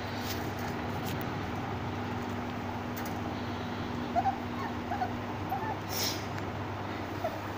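Labrador puppies whimpering: a run of short, high whines from about four seconds in, over a steady low hum.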